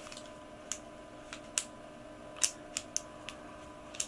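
Dials of a COASTAR 5-digit combination bike lock clicking as they are turned by hand: about eight sharp, irregular clicks.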